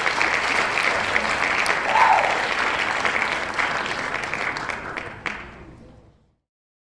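Audience applauding: dense, even clapping that fades out about five seconds in and then stops.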